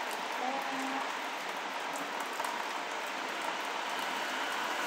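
Steady rain, heard as an even hiss.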